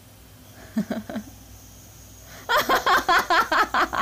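Laughter: a short chuckle about a second in, then a quick run of loud, rapid laughs from about two and a half seconds in.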